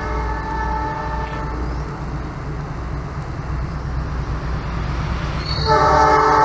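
Diesel locomotive hauling a passenger train, its engine rumbling low and steady. About five and a half seconds in it sounds its horn, a loud blast of several steady notes together.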